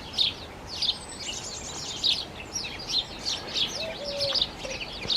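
Garden bird chorus led by chirping house sparrows: many short high chirps overlapping without a break, with one brief low note about four seconds in.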